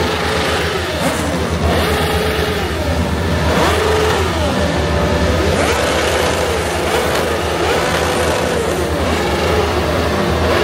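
Several car engines revving and driving past, their pitches rising and falling over one another, over a steady low rumble.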